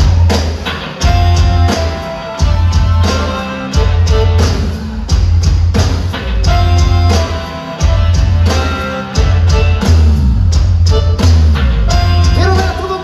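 Live grupera band playing: electric guitar, bass, drum kit and keyboard, with a heavy bass hit about every second and a quarter under the melody.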